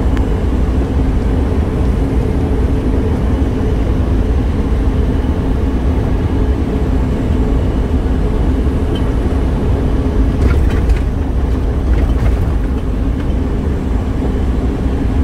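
Steady road and engine drone inside a vehicle's cabin while it cruises at highway speed, a low rumble with a faint steady hum. A few faint clicks come about two-thirds of the way in.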